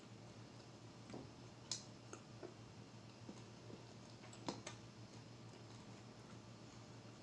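Quiet mukbang eating sounds: a few scattered soft clicks and crunches of someone eating fried salmon, over a faint steady low hum.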